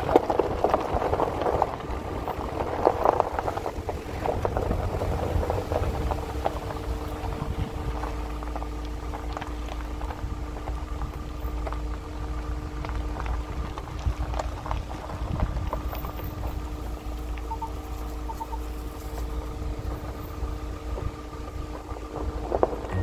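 Campervan driving slowly on a gravel track: tyres crunching over loose gravel above a low engine rumble. The crunching is densest in the first few seconds, and a steady engine hum comes in from about five seconds on.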